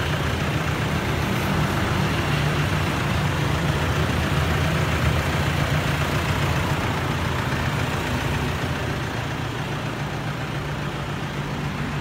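Toyota Hilux VNT turbo-diesel engine idling with a steady low hum.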